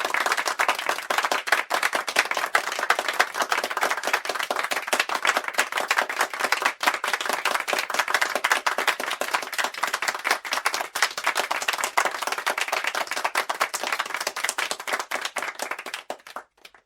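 Audience applause: many people clapping densely and steadily, which thins out and stops shortly before the end.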